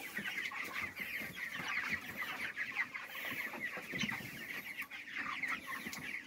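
A flock of four-week-old broiler chickens peeping and cheeping continuously as they feed, many short falling chirps overlapping.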